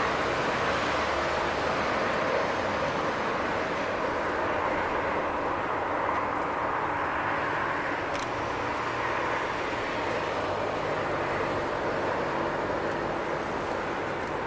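Airbus A340-300 airliner taxiing on its four CFM56-5C turbofan engines at low power: a steady jet rush with a low rumble beneath it.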